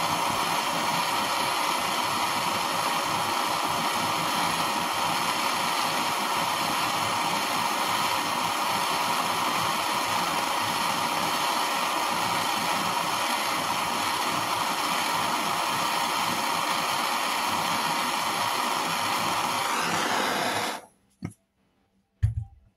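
MAP gas torch burning steadily, its flame held on a hex bolt head to heat it red hot. The flame cuts off suddenly about 21 seconds in.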